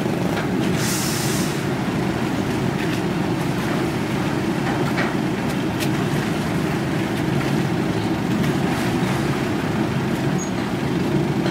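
Steady low engine rumble, with a short hiss about a second in.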